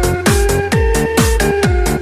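Electronic dance music with a steady kick drum at about two beats a second, hi-hats and a held synth line.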